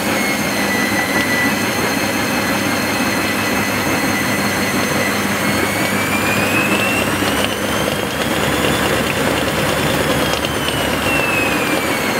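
Constructa Contura washing machine spinning, a steady rushing noise with a motor whine. About six seconds in the whine climbs in pitch and a deeper rumble joins it as the drum speeds up; near the end the whine falls again as it slows.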